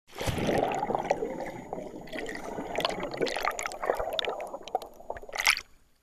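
Water bubbling and gurgling, with many small pops and clicks throughout, a louder rush of bubbles about five and a half seconds in, then a sudden stop.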